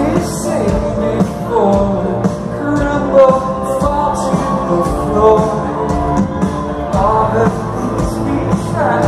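Live rock band playing with sung vocals, heard from within a concert crowd.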